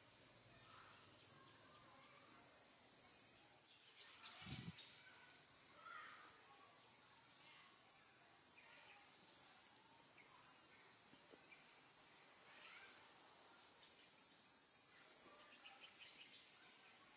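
Steady high-pitched insect chorus, with faint scattered chirps. A brief low thump about four and a half seconds in.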